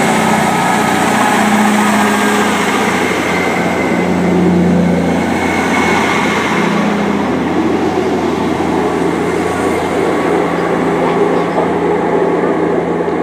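Class 158 diesel multiple unit pulling out of a station, its underfloor diesel engines running under load with a steady low drone over the rumble of the train moving along the rails.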